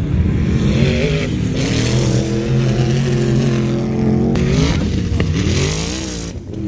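Off-road drag vehicles' engines accelerating hard on a sand drag launch, the engine pitch climbing about a second in, holding steady, then climbing again later.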